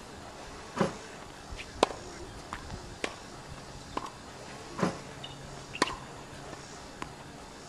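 Tennis balls being hit with a racquet and bouncing on a hard court: a series of sharp pops, about one a second.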